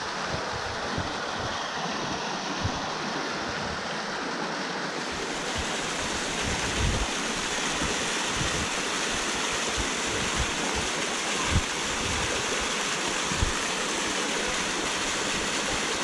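Small waterfall cascading down a rock face: a steady rush of splashing water. A few brief low thumps come through it in the second half.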